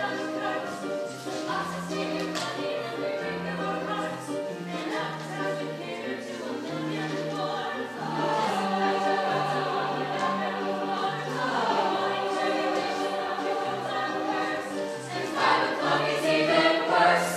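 A group of voices singing together over musical accompaniment with a steady stepping bass line, swelling louder near the end.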